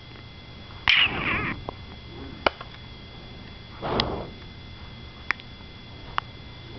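Sharp single clicks of a computer mouse, a second or more apart, over a faint steady high whine. Two brief hissy bursts stand out, the louder about a second in and a softer one near the middle.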